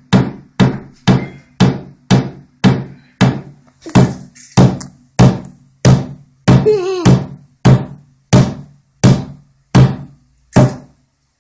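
Hammer blows driving a nail into wood, a steady run of about two strikes a second, each ending in a short low ring. The strokes come a little further apart near the end.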